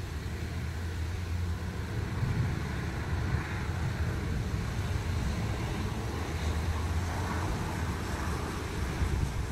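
Thunder rolling in a long low rumble after a lightning flash, swelling about two seconds in and holding.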